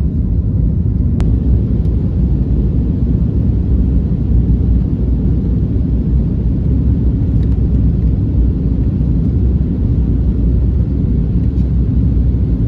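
Jet airliner cabin noise during takeoff and initial climb: a steady, loud, low rumble of the engines and airflow heard from inside the cabin. One brief click comes about a second in.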